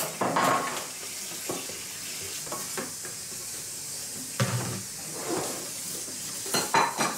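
Food sizzling in a pan, a steady hiss, with scattered knocks and clinks of utensils and cookware.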